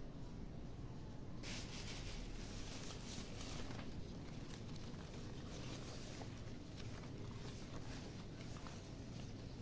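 Peace lily leaves rustling as they are handled and brushed, starting about a second and a half in, with a few small clicks.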